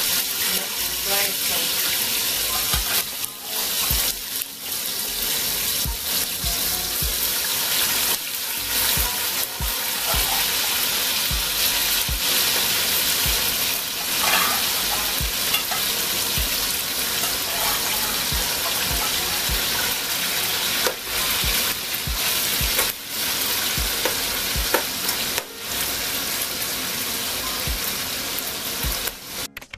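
Beef pieces sizzling as they fry in hot oil in a large pot: a steady hiss, with a spoon scraping and clicking against the pan as they are stirred.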